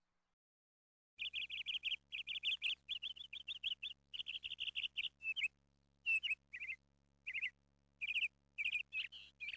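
Small bird chirping in rapid runs of high, quick notes, starting about a second in and breaking into shorter groups with pauses in the second half.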